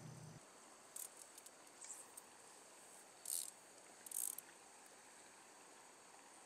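Near silence with faint insects chirping: a handful of short, high-pitched chirps over a faint steady high buzz.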